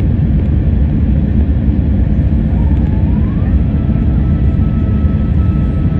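Airbus A350-900 cabin noise: the steady rumble of its Rolls-Royce Trent XWB engines and airflow, with a faint whine that rises about three seconds in and then holds steady.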